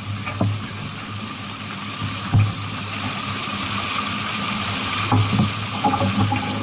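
Water rushing along the hull of a sailboat under way, a steady wash of noise with a low steady hum beneath it and a few short knocks, one about two seconds in and several near the end.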